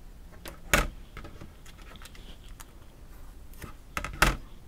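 Hands pressing and handling a die-cut cardstock jigsaw puzzle sheet on a cutting mat: scattered light clicks and taps, with two louder knocks, one about a second in and one near the end.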